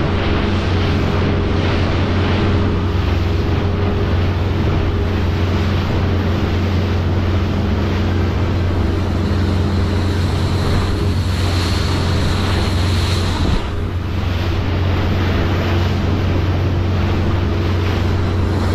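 Motorboat engine running steadily at speed, a constant low drone under the rush of water past the hull and wind buffeting the microphone.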